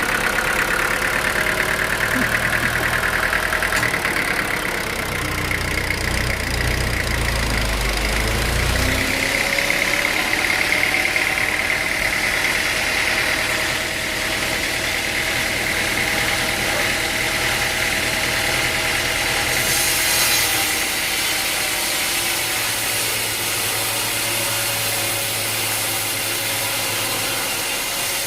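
Sawmill machinery running steadily: a motor hum with a steady high whine.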